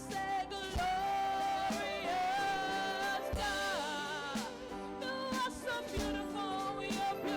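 Live gospel worship music: a singer holding long, wavering notes over a sustained band accompaniment, with a low beat about every two and a half seconds.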